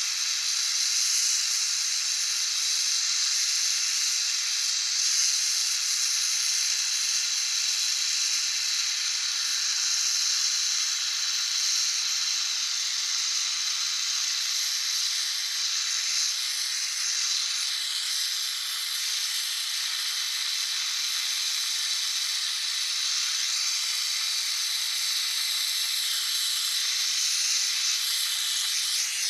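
Oxy-fuel torch flame hissing steadily as it plays into a crucible, melting placer gold.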